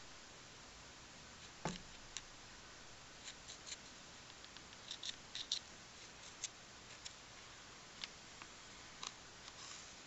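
A thin plastic stick poked and wiggled in the gap under a door, making scattered light clicks and taps, with one duller knock about two seconds in.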